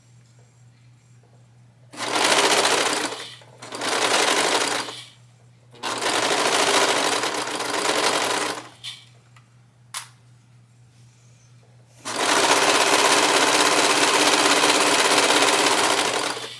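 Brother serger (overlocker) running in stop-start bursts of one to three seconds while the fabric is turned around a curve, then one steady run of about four seconds near the end. A single sharp click falls in the pause between.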